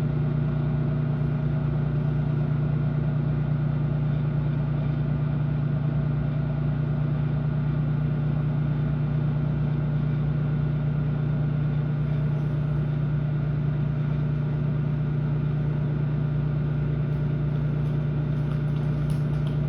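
Microwave oven running with a steady, even electrical hum and fan noise, heating gum inside.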